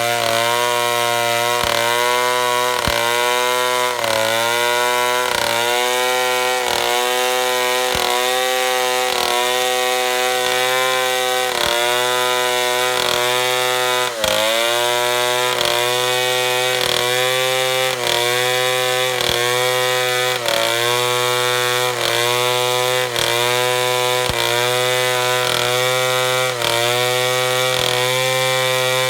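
Chainsaw running at high revs while cutting lengthwise through wood. Its pitch sags briefly under the load and recovers about once a second, with one deeper drop about halfway through.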